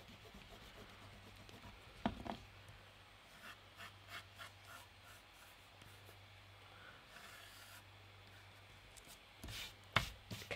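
Faint scratching of a pencil sketching short strokes on paper, with a soft knock about two seconds in and another near the end.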